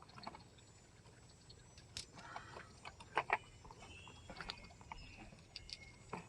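9mm cartridges being picked out of an ammo box's plastic tray and clinking together in the hand: a scattering of light clicks, with two sharper clicks about three seconds in.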